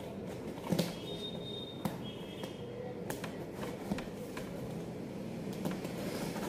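Cardboard parcel being handled and its packing tape cut open with a small knife: scattered taps and scrapes on the box over a steady low background hum.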